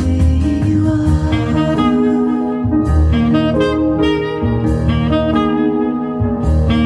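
Recorded music played back through a Quad ESL-57 electrostatic loudspeaker, with held melodic notes changing every second or so over a bass line.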